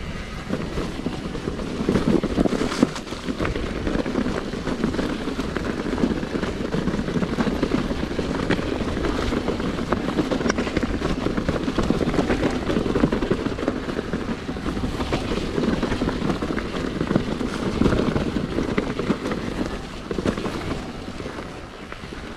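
Mountain bike riding over a rough, stony trail: a steady rumble of tyres on the ground with constant small clicks and rattles from stones and the bike.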